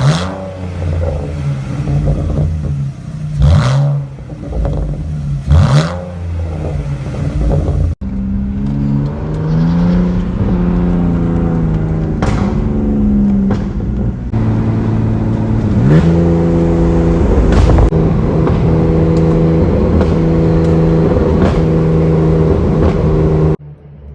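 Straight-piped exhaust of a 2004 BMW 325ci's M54 straight-six, with the muffler and both resonators deleted, accelerating under load. The engine note rises and falls through several rev changes, with quick revs in the first few seconds, then holds a steady drone before cutting off abruptly near the end.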